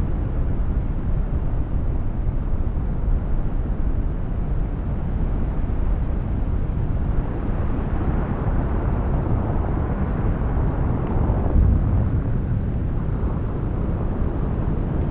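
Steady low rumble of wind rushing over the microphone in paraglider flight.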